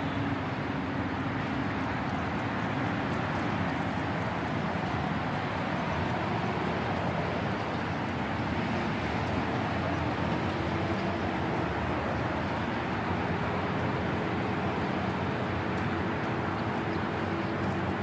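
Steady din of heavy construction machinery: diesel engines of excavators and dump trucks running, with faint engine tones rising and falling over an even mix of noise.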